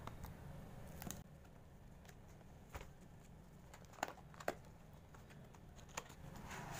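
Faint scattered clicks and taps of cardboard as the tuck tabs and flaps of a laptop's cardboard box are worked open by hand, the sharpest pair about four seconds in.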